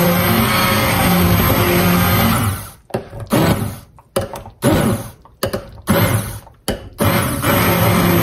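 Handheld immersion blender motor running steadily while puréeing cooked apple pieces in a crock pot. About three seconds in it starts cutting in and out in several short bursts, then runs steadily again near the end.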